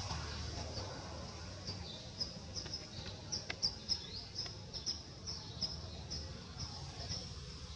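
Small birds chirping: many short, high chirps, a few each second, some dropping in pitch, over a low rumble.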